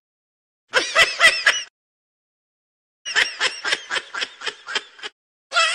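A kitten mewing in quick, high-pitched cries, about five short mews a second: a run of about a second, then after a pause a longer run of about two seconds.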